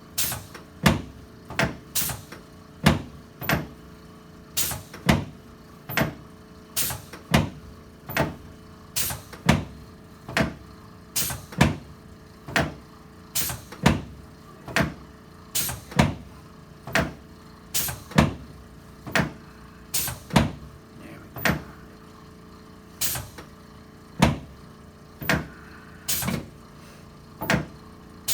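A steady series of sharp clacks from a chiropractic adjustment being worked down the sacrum, about one a second, with one brief pause a little past two-thirds of the way.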